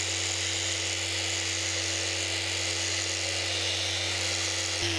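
Random orbital sander running steadily while sanding the painted cabin top, with a steady whine and a low hum. It is switched off just before the end, and its pitch falls as it winds down.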